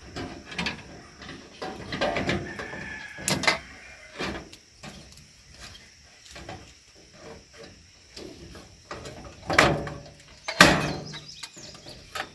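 Irregular knocks, clicks and scrapes of gazebo parts being handled and worked into place, a piece with its plastic clips taped on being pushed up into its slot; a few louder knocks stand out among the lighter clicks.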